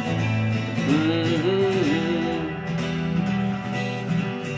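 Music: strummed guitar accompaniment, with a held, wavering melody note from about one to two and a half seconds in.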